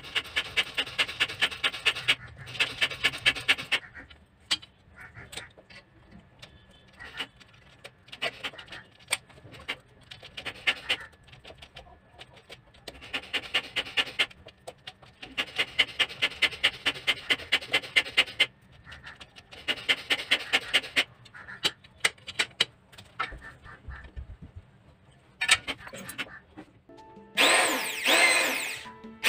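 Hand screwdriver driving screws into a metal microwave wall bracket: repeated bursts of rapid grinding clicks, each a second or two long, with short pauses between. Near the end an electric drill starts up with a rising whine.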